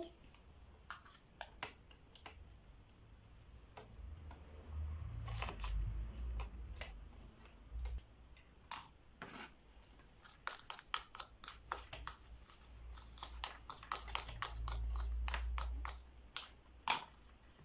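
Handling sounds as flour is worked through a funnel into a balloon: scattered light clicks and taps that come thicker in the second half, with low rumbling bumps twice.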